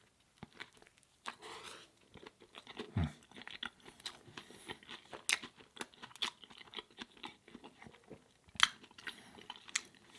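Close-miked eating of a plant-based Beyond Meat burger: wet chewing with many small smacks and clicks of the mouth, and a louder bite or crunch near the end.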